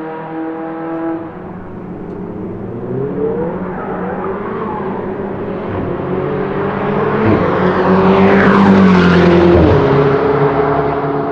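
Ferrari 488 GTB's twin-turbocharged 3.9-litre V8 accelerating hard past, the engine note climbing in pitch. It is loudest about eight to nine seconds in, then drops in pitch as the car goes away.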